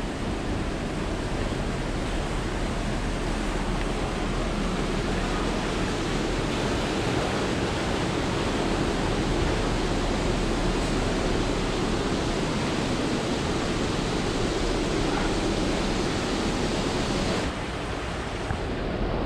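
Steady rushing wind noise on a ship's open top deck, turning a little quieter and duller near the end.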